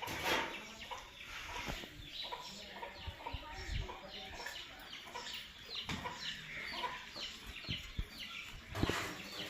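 Green parrots giving a rapid run of short, harsh calls, each one dropping in pitch, a few every second, with a few dull thumps among them.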